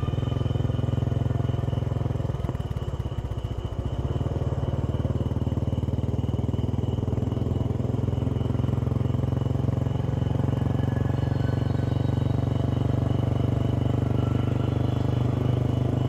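Motorcycle engine running steadily at a constant pace, with a fast, even pulsing.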